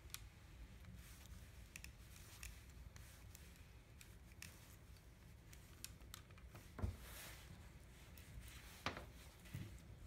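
Quiet, scattered clicks and taps of small plastic robot-arm kit parts being handled and fitted together by hand, with two slightly louder knocks about two-thirds of the way through and near the end.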